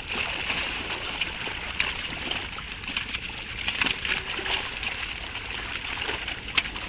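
A net crowded with carp (catla, rohu, grass carp) thrashing in shallow pond water: continuous splashing, with many sharp splashes scattered through it.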